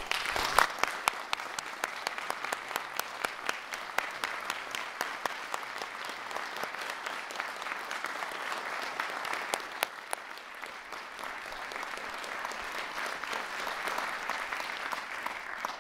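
Audience applauding: dense, steady clapping that stops suddenly near the end.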